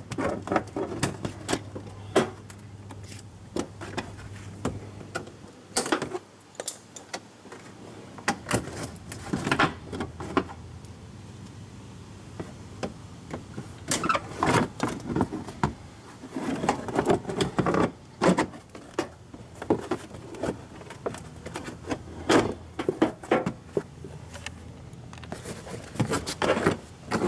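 Plastic wheel-well splash liner being worked loose by hand: irregular clicks, knocks and scraping of plastic as the liner and its clips are handled and pulled away from the wheel arch.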